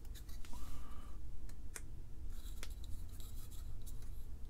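A B7971 Nixie tube's wire pins scraping and clicking as they are worked into a SmartSocket board's socket pins, a very tight fit, with a brief squeak under a second in.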